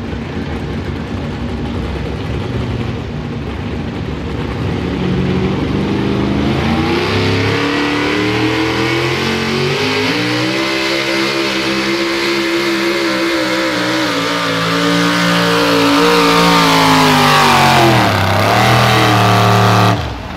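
Supercharged engine of a modified 4x4 pulling truck working under load as it pulls a weight-transfer sled. It runs low at first, revs up hard about five seconds in, and holds high revs while getting louder. The revs dip briefly near the end and recover before the sound cuts off suddenly.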